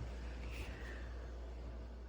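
Quiet room tone with a low steady hum and faint hiss; no distinct sound stands out.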